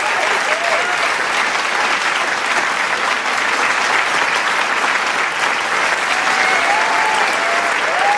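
Large crowd clapping in dense, steady applause and cheering. Scattered shouts and whoops rise over the clapping near the start and pick up again near the end.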